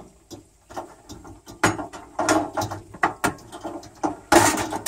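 Irregular metal clicks and knocks from a two-burner camp stove being handled, its folding wire legs bent out, with a louder clatter near the end.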